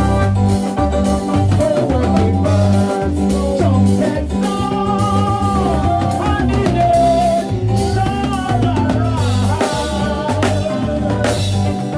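A live band playing with a steady beat, led by a prominent electric bass guitar line and a drum kit, with a melodic line gliding above them through the middle.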